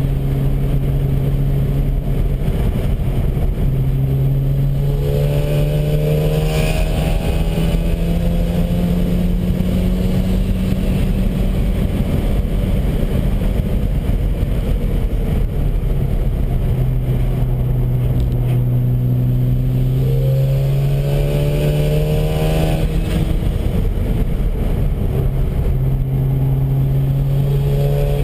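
Mazda RX-7 FD3S's twin-turbo 13B rotary engine heard from inside the cabin under hard acceleration on track. Its note climbs slowly, drops back around the middle, then climbs again.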